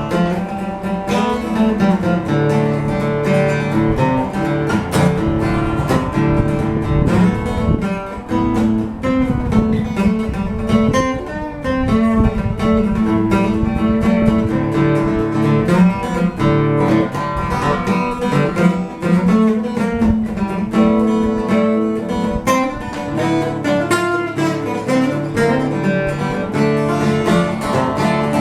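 Acoustic guitar picking and strumming an instrumental passage of an old-time folk tune, with no singing.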